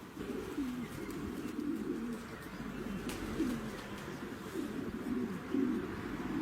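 Pigeons cooing: a run of low, bending coos, about one each second.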